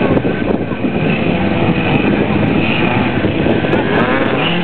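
ATV engines running on the dunes, a rough steady drone with the pitch rising and falling near the end as an engine revs.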